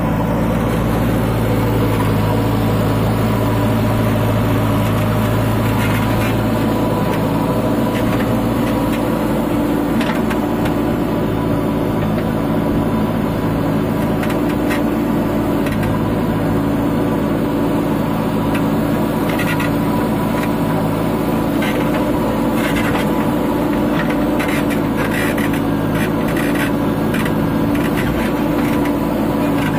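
JCB 3DX backhoe loader's diesel engine running steadily under load while the backhoe digs. From about six seconds in, irregular knocks and scrapes come from the bucket biting into the soil.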